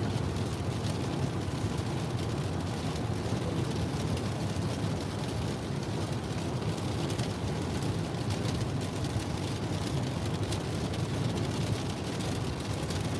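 Steady road noise from inside a car on a rain-soaked highway: tyres hissing through standing water mixed with rain falling on the windshield and body.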